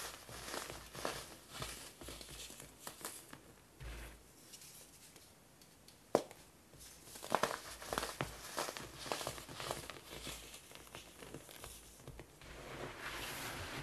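Hands crushing moulded blocks of baking soda, a dry crumbly crunching with irregular crackles and one sharp crack about six seconds in. Near the end comes a soft steady hiss of crumbs and powder falling onto the heap.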